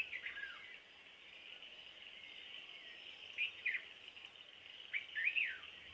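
A bird gives short sweeping calls over a steady high insect drone: a falling note at the start, two quick notes about three and a half seconds in, and a three-note phrase near the end.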